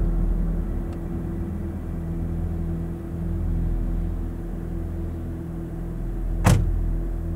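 Car engine idling with a steady low hum, and one sharp click about six and a half seconds in.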